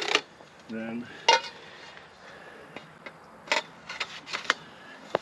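Metal parts knocked together: a series of sharp clinks and clanks, several of them ringing briefly, at uneven intervals.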